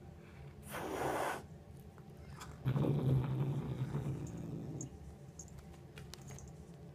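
Domestic cat growling low and rough while guarding a mouse it has caught, a steady growl from about three seconds in that lasts about two seconds, after a brief rush of breathy noise about a second in. Faint small clicks near the end.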